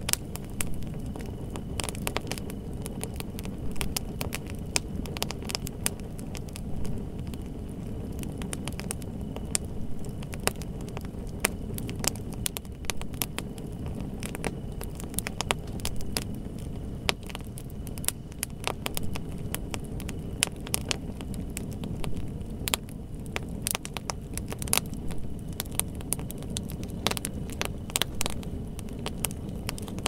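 Wood fire burning: frequent, irregular sharp crackles and pops over a steady low rumble of the flames.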